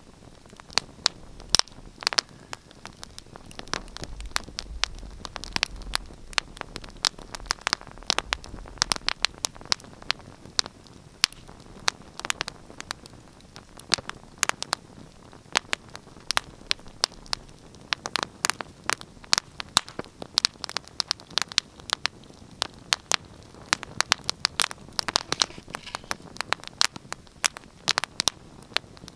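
Fire in a fireplace crackling: a dense, irregular run of sharp pops and snaps over a low steady hiss.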